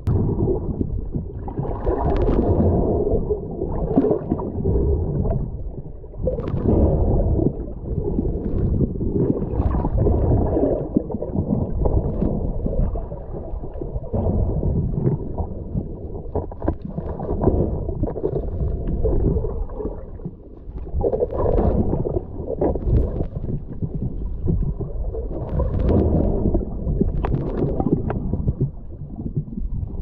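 Muffled underwater noise heard through a submerged camera: a steady low rumble with gurgling bubble bursts every two or three seconds, from a diver breathing out.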